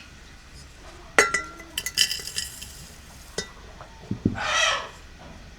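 Glass and metal tableware clinking: several sharp, ringing clinks of glasses, dishes and cutlery being handled, then a low thud and a short, rough sound near the end.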